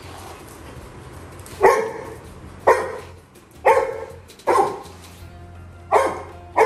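Labrador retriever puppy barking six times, roughly once a second, starting a little under two seconds in.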